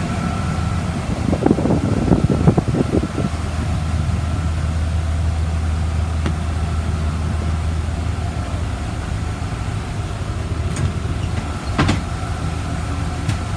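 2004 Blue Bird school bus engine idling steadily. A burst of rattling knocks comes about a second in and sharp clicks near the end as the bus's entry door is worked.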